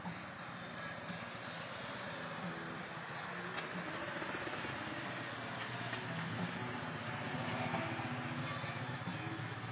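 2011 Harley-Davidson Street Glide's V-twin engine running at low speed as the bike rolls slowly past, growing louder as it comes close about eight seconds in.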